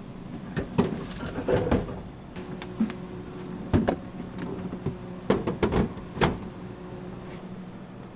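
Stainless-steel commercial refrigerator door and plastic dough boxes being handled, a series of clunks and clatters over a steady hum.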